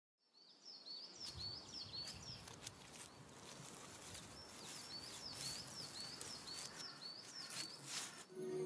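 Outdoor nature ambience: a small bird repeating a short high chirp several times a second, in two runs, over a faint steady hiss with a few soft clicks.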